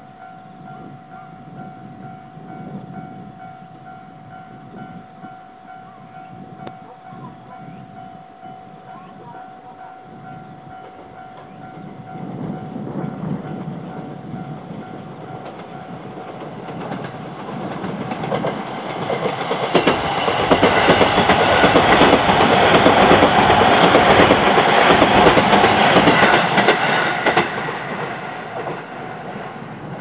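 Japanese level-crossing alarm ringing its steady electronic bell while a JR Tōgane Line electric train approaches and passes. The train's rumble builds from about halfway and is loudest about two-thirds through, with wheels clacking over the rail joints, then it fades near the end.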